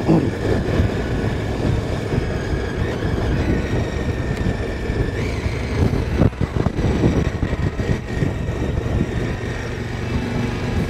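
Motorcycle riding at steady speed, with wind rushing over the microphone and the engine running underneath. A few sharper knocks of buffeting come about six seconds in.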